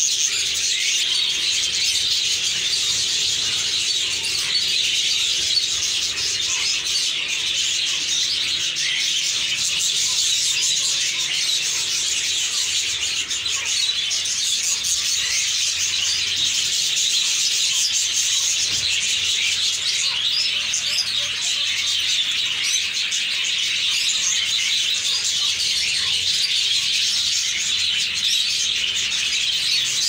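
A large flock of budgerigars chattering all at once: a dense, continuous high chirping that holds steady with no pauses.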